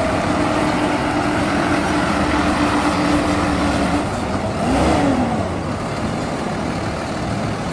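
Heavy boom truck's engine running as it drives slowly past, with a steady engine note and a brief rise and fall in pitch about five seconds in.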